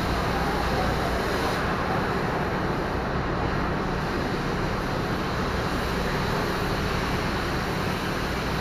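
Steady low mechanical hum with a constant hiss, even in level, like a machine or motor running.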